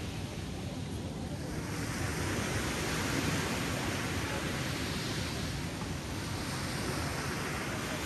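Small ocean waves breaking and washing up on a sandy beach: a steady rush of surf that swells as each wave breaks, about two seconds in and again later.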